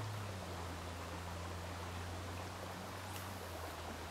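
Faint steady outdoor background: an even hiss over a low steady hum, with one faint tick about three seconds in.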